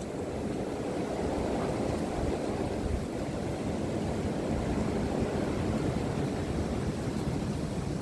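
Strong winter storm wind blowing steadily, a continuous rushing noise with low, uneven buffeting on the microphone. It swells slightly about half a second in.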